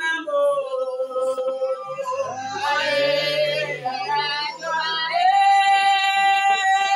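A high voice singing long held notes, stepping up to a higher held note about five seconds in, with a lower voice joining briefly in the middle.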